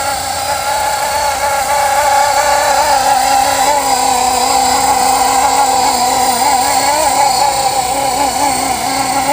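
Blade SR radio-controlled electric helicopter in flight: the motor and rotor whine keeps wavering up and down in pitch.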